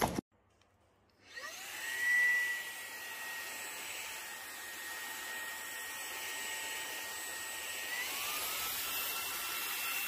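Xiaomi Mijia handheld cordless vacuum cleaner switching on about a second in, its motor whine gliding up to a steady high pitch over a rush of air. Near the end the whine glides up again to a higher steady pitch as the motor steps up to a faster speed.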